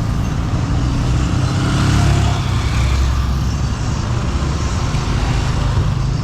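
Street traffic: motor vehicle engines running with steady road noise and a low hum.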